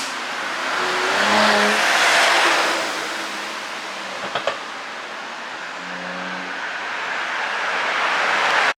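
Mercedes-Benz E400 Cabriolet driving under power: the engine and road noise swell to a peak, ease off and build again. About four and a half seconds in come two quick exhaust cracks, the pops of a pop-and-bang ECU tune. The sound cuts off abruptly near the end.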